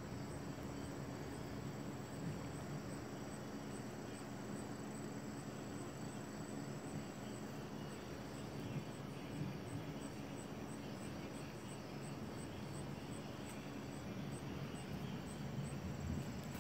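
Insects calling at dusk: a steady high, thin trill that pulses about three times a second. Beneath it is a steady low outdoor background noise.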